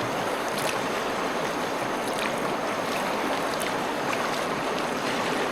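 Steady rush of river water flowing over rocks, even and unbroken, with a few faint ticks on top.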